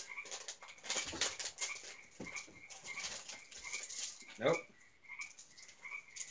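Frogs calling outside, short high calls repeating about twice a second, under the crinkling of a plastic snack bag being handled and opened. A short voiced sound about four and a half seconds in is the loudest moment.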